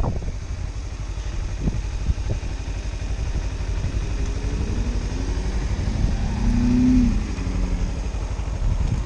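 2013 Kawasaki Ninja 300's parallel-twin engine running at low revs, then pulling away. The revs rise from about four seconds in and drop suddenly about seven seconds in.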